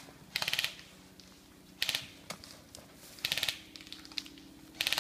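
Airsoft guns firing four short full-auto bursts, each a rapid string of clicks, about a second and a half apart.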